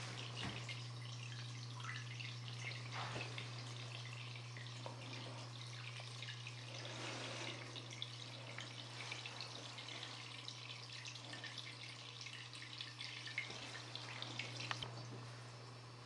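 Water trickling and dripping, with scattered small drip ticks over a steady low hum.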